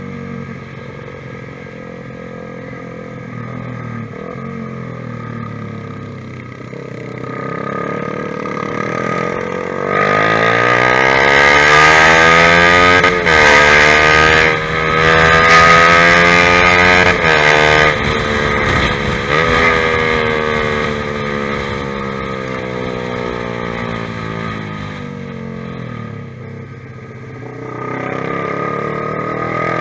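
Honda CBR150R single-cylinder engine running through a ProLiner TR1-R aftermarket exhaust with a custom pipe. It runs low and steady at first. About a third of the way in, it revs up hard through two quick gear changes, then its pitch falls slowly as it slows, and it rises again near the end.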